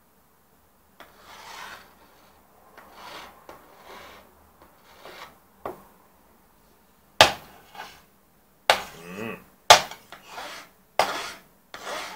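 Hand file rasping in slow strokes about a second apart along the edge of a 2010 MacBook Pro's aluminium unibody casing, rounding off the sharp edge. In the second half several loud sharp knocks come between the strokes.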